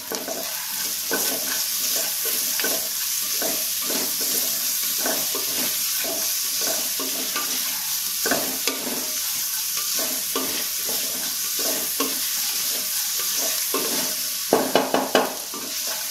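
Sliced onions sautéing in a little coconut oil in an aluminium pressure cooker: a steady sizzle, with a wooden spatula scraping and stirring in repeated short strokes. Near the end, a quick run of a few louder knocks.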